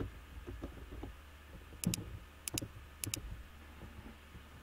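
Computer mouse clicking: three quick press-and-release double clicks about two seconds in, half a second apart and then another half second later, over a low steady hum.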